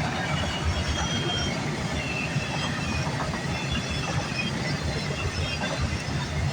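Freight train cars rolling past: a steady rumble of steel wheels on the rail with irregular knocks, and short high-pitched wheel squeals now and then.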